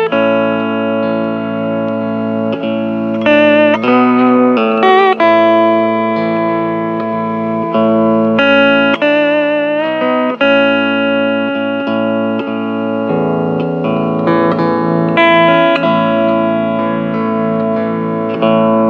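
Hawaiian steel guitar playing a slow melody of sliding, wavering sustained notes over held low accompaniment notes.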